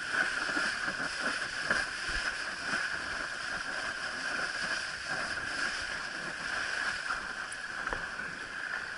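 Water rushing and slapping against a windsurf board sailing across choppy water: a steady hiss with small irregular splashes.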